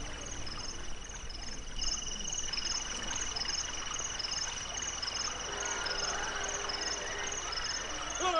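Crickets chirping: a continuous high, pulsing trill, becoming stronger about two seconds in, with short higher chirps repeating steadily over it.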